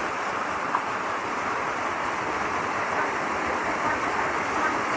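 Small waterfall rushing steadily down rocks into a pool.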